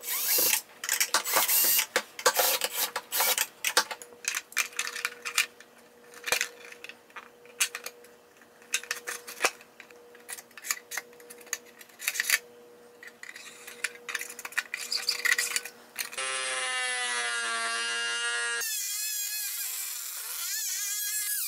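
Irregular clicks, taps and knocks of hand work on plastic parts. About sixteen seconds in, a high-speed rotary tool with a cut-off wheel starts up: a high whine whose pitch wavers as the wheel cuts into plastic.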